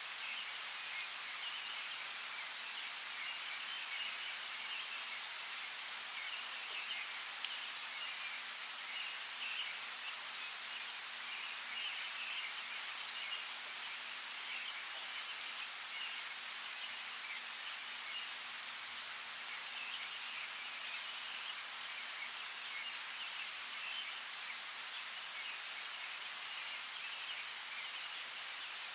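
Steady rain falling, with the patter of raindrops, and faint bird chirping that comes and goes.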